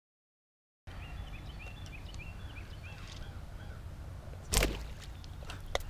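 After about a second of silence, a bowfishing bow is shot: one loud, sharp thump a little past halfway, followed about a second later by a shorter snap. Under it runs a steady low motor hum, with a bird chirping repeatedly.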